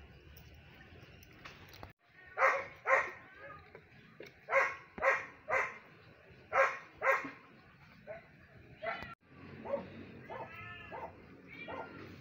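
Domestic animals calling: seven loud, short, sharp calls in pairs and threes in the middle, then several softer, wavering calls near the end.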